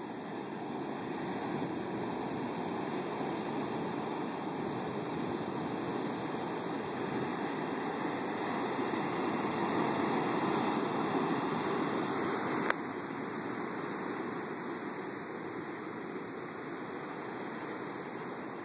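Storm-surge surf breaking and washing up a sandy beach as a continuous rushing wash. It swells to its loudest about halfway through, then eases. A single brief click comes about two-thirds of the way in.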